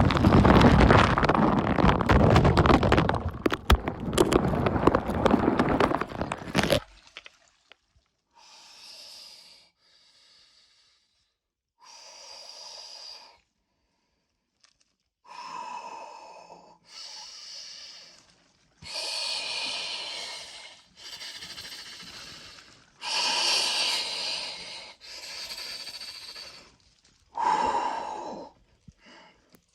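Loud churning noise of ice and cold water being stirred for about the first seven seconds, then a series of about nine deep, forceful breaths, each around a second long, in a paced ice-bath breathing rhythm.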